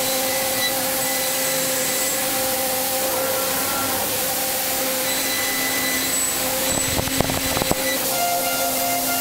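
Five-axis CNC machining centre running: a steady hiss with a constant whine from the spinning milling spindle, and a short cluster of sharp clicks about seven seconds in as the cutter meets the metal block.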